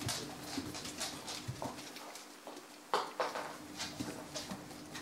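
Kerry blue terrier puppies scrabbling about in a whelping box, their claws making irregular clicks and scratches on the ribbed rubber mat. A sharper knock comes about three seconds in.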